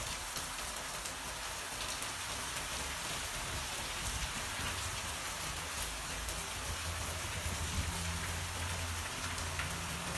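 Heavy rain falling steadily, an even hiss with scattered drops ticking close by and a low steady hum underneath.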